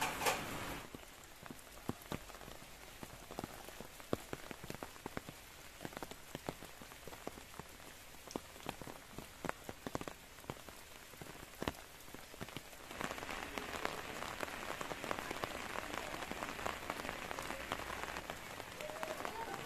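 Rain falling. It starts as many separate drops ticking irregularly, then about two-thirds of the way through turns into a denser, steady patter. A short loud clatter comes at the very start.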